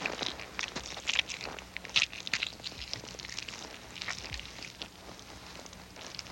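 Irregular crunching and crackling from a raw seal carcass being cut up on snow, with short sharp clicks scattered through it. A faint steady low hum runs underneath.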